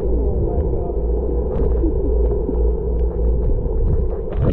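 Muffled underwater sound picked up by an action camera in a waterproof housing lowered on a fishing line: a steady low rumble and hum with many faint clicks and ticks.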